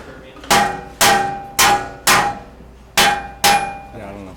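A metal object struck sharply six times, about two strikes a second, each hit ringing with a bright metallic tone that dies away before the next.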